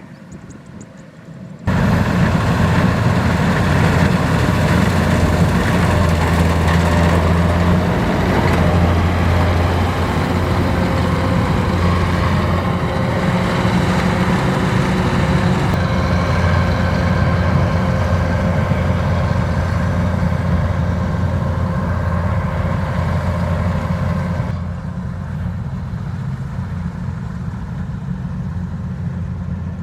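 Kubota DC-93 rice combine harvester's diesel engine and threshing machinery running steadily with a low hum. It starts suddenly about two seconds in and turns quieter and duller near the end.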